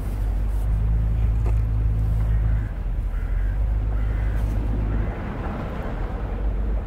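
Low, steady engine hum of a motor boat near the shore. It is loudest for the first few seconds, drops back a little after about three seconds and fades further near the end.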